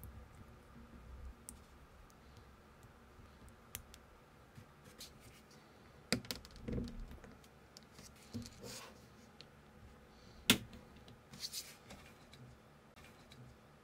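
Small plastic building-brick pieces clicking and snapping together as a minifigure is put together and pressed onto its studded display base: scattered light clicks and taps, the sharpest about ten and a half seconds in.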